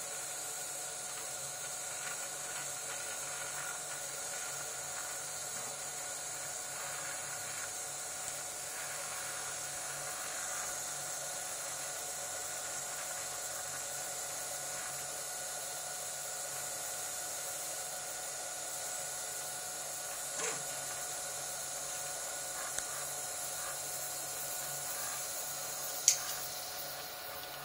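Desktop FDM 3D printer running a print: its stepper motors whine in steady tones over the hiss of its fans as the print head moves. Near the end a sharp click, after which the highest whine fades.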